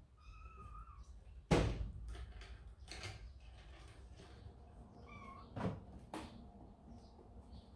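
A kitten mewing twice, one high call near the start and a shorter one about five seconds in, with a loud sharp knock about a second and a half in and two softer knocks near six seconds; faint high chirps in the background.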